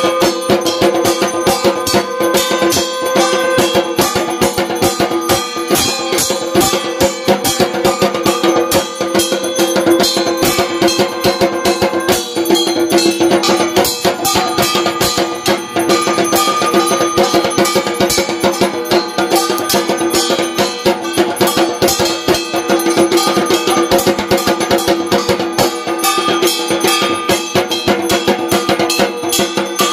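Music with fast, steady percussion struck many times a second over a sustained held tone.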